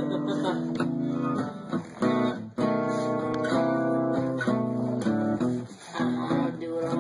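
Guitar music: strummed chords that change every second or so.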